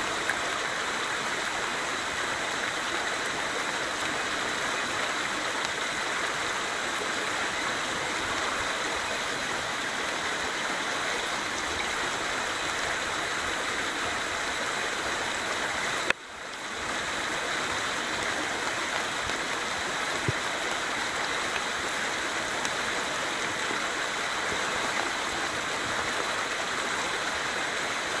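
Fast-flowing creek rushing steadily over riffles. About halfway through there is a click and the sound briefly drops away, then swells back within a second.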